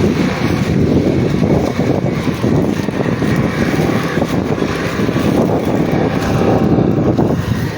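Vehicle on the move with wind buffeting the microphone, a loud steady low noise that eases off shortly before the end.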